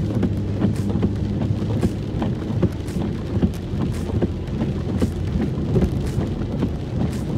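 Inside a moving car in heavy rain: steady engine and wet-road rumble with rain on the car. Faint swishes come about once a second as the windshield wipers sweep.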